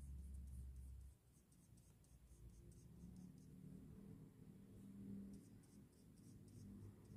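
Faint scratchy strokes of a flat brush working wet watercolour paint across a paper swatch card. The strokes come in quick runs near the start and again from about five seconds in, over a low steady hum.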